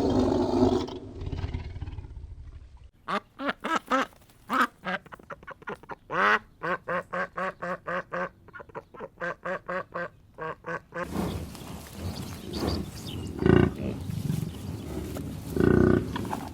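Duck quacking in a long run of short calls, about two or three a second. It cuts off abruptly and gives way to a noisier background with a couple of louder animal calls near the end.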